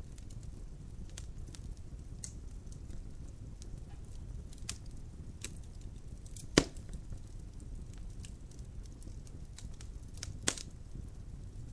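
Wood fire burning in a fireplace: a low steady rumble with scattered crackles and two loud pops, about two-thirds of the way through and again near the end.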